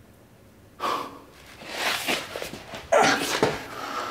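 A man breathing hard: three heavy, gasping breaths after a quiet first second.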